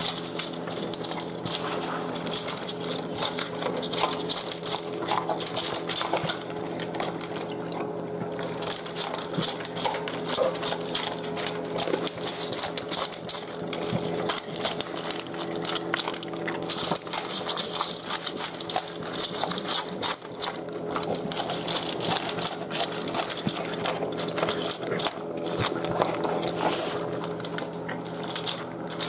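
American Bully dog eating raw chicken hearts and pasta from a wide pan: fast, continuous chewing, smacking and lapping, with many quick clicks of teeth and food against the pan. A steady low hum runs underneath.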